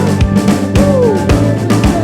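Live soul band playing: a drum kit keeps a steady beat under sustained bass notes, with a melodic line that swoops up and back down in pitch about a second in.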